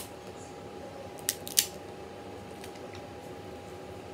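Jonah crab claw shell cracking in three sharp cracks, one at the start and two close together about a second and a half in, over a faint steady hum.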